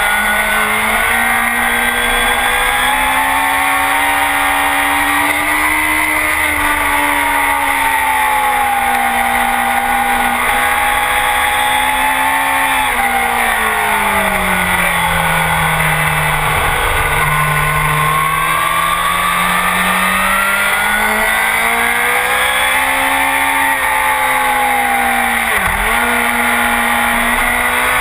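Honda CBR1000RR's inline-four engine through a full Akrapovic exhaust, running hard at track speed with wind rush. Its pitch rises and falls with the throttle through the corners, sinks lowest about halfway through, then climbs again, with a brief sharp dip near the end.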